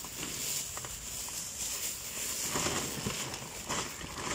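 Plastic bags rustling and crinkling as they are handled and filled, with scattered small clicks and knocks.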